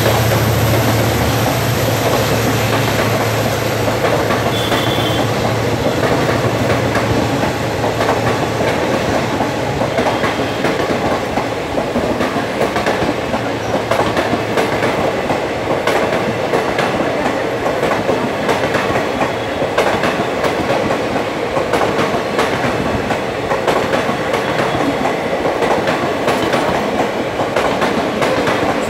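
The coaches of an express passenger train rushing past close by at speed, wheels clattering over the rail joints in a steady, rapid rush. A low hum fades out over the first several seconds, and a brief high wheel squeal comes about five seconds in.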